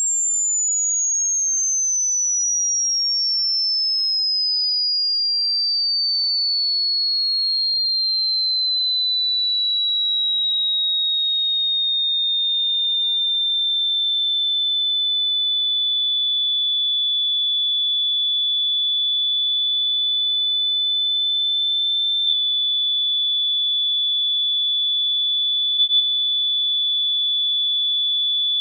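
A single high, pure electronic tone gliding slowly down in pitch over the first dozen seconds, then held steady.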